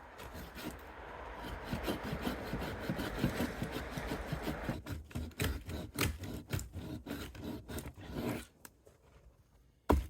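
Handsaw cutting through a fallen tree trunk: a continuous rasp of back-and-forth strokes at first, then separate strokes at about three a second, stopping shortly before a sharp knock near the end.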